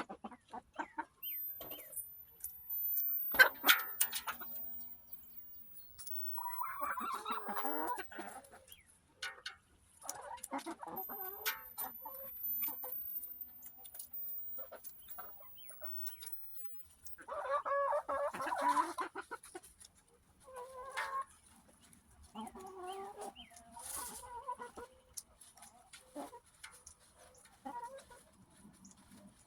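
Domestic hens clucking in short bouts while they feed, with scattered sharp clicks. The loudest sound is a quick cluster of clicks about three and a half seconds in.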